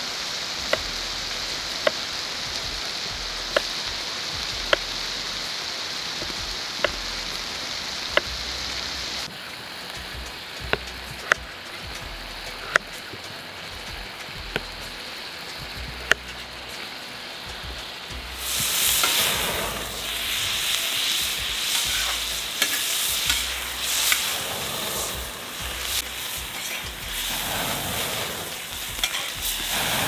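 A knife cutting potatoes on a wooden cutting board, a sharp tap every second or two. From about two-thirds of the way through, the louder crackling sizzle of beef cubes frying in oil in a wok-style pan over a wood fire, stirred with a ladle.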